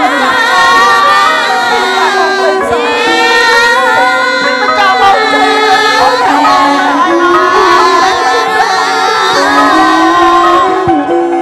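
Music from a Bassac theatre ensemble: a loud, continuous melody line that wavers and slides in pitch over the accompaniment, easing off slightly near the end.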